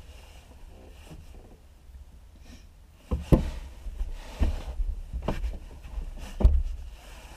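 Four dull knocks or thumps about a second apart in the second half, inside a closed glider cockpit, over a low steady rumble.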